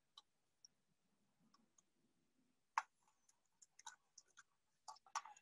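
Near silence with a few faint, sharp clicks from hands handling and straightening a thin low-voltage wire: one click about three seconds in and a small cluster near the end.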